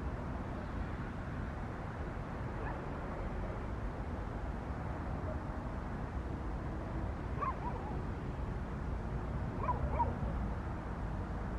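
A few short yelping animal calls, a faint one early and the louder ones about two-thirds of the way in and as a pair near the end, over a steady low outdoor rumble.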